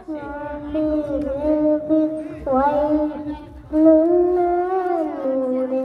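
A young girl singing an Islamic ghazal into a microphone, in long held notes that slide up and down between pitches, settling on a lower held note near the end.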